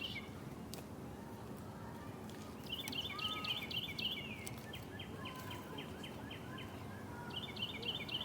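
Songbirds singing faintly outdoors: a short phrase of quick repeated notes about three seconds in and again near the end, with a run of evenly spaced chips, about four a second, in between, over a light background hiss.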